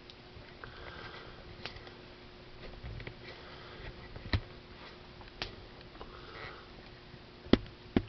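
Crosman 2200 Magnum .22 multi-pump pneumatic air rifle being handled and readied, with faint air hisses and a few sharp clicks. Near the end come two much louder sharp cracks about half a second apart.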